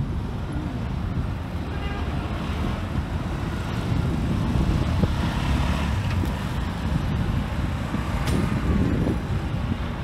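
Steady low rumble of wind buffeting the microphone, with outdoor traffic noise beneath it.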